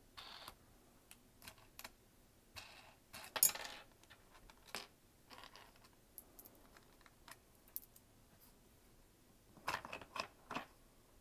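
Faint handling noises from a small flower press as its metal wing nuts are unscrewed and the press boards are lifted and moved: scattered clicks, taps and scrapes, the loudest about three and a half seconds in and a cluster near the end.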